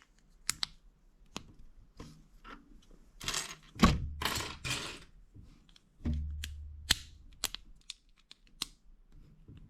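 Small plastic building-brick pieces being handled and pressed onto a model, with a number of sharp separate clicks as parts snap into place and a couple of longer rustling stretches of handling in the middle.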